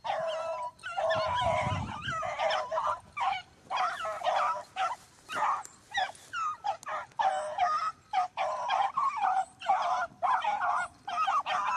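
A pack of beagles baying in full cry, many voices overlapping with barely a pause, as the hounds run a rabbit's scent trail.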